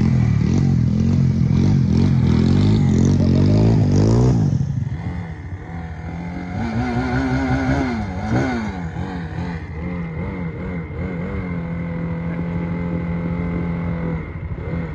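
Motorcycle engine revved up and down for several seconds, dropping back, blipped a couple more times, then settling into a steady idle for the last few seconds.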